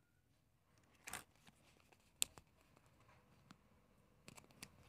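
Faint handling of small plastic toy parts from a Kinder Joy egg, with a short rustle about a second in and one sharp plastic click just after two seconds, then a few small ticks near the end.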